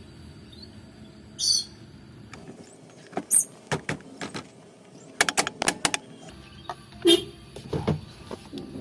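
Irregular clicks, taps and a short scrape from handling the car's steering-wheel horn button and its contact plate. A quick cluster of clicks comes about five seconds in, and two louder knocks near the end.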